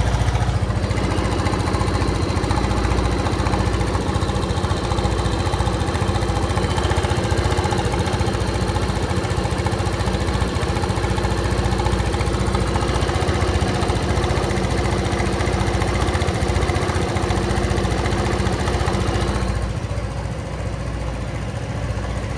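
Motorcycle engine idling steadily while cold, with an abnormal noise from an unknown source that is especially noticeable on a cold engine. About 19 seconds in, the sound turns a little quieter and duller.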